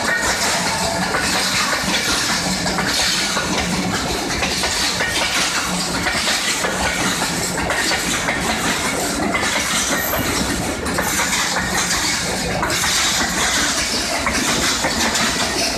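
Passenger train coaches passing at speed close by: a steady, loud rumble and rattle of steel wheels on the rails with a running clatter of clacks.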